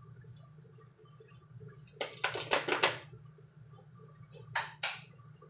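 Kitchen items handled on a counter: a quick cluster of clattering knocks about two seconds in and two more knocks near the end, over a steady low hum.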